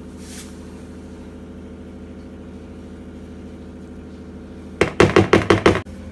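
A quick run of about six sharp taps, a spoon knocking against the mixing bowl as semolina is added, about five seconds in. Under it runs a steady low mechanical hum.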